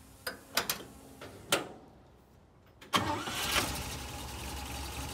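A few sharp clicks, then about three seconds in the 1962 GMC truck's 305 V6 catches at once and settles into a steady idle. It starts easily though barely warmed up.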